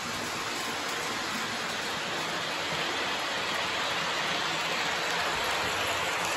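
Lionel Hogwarts Express O-gauge model train running on track, a steady rushing rumble that grows slightly louder as the locomotive nears and passes.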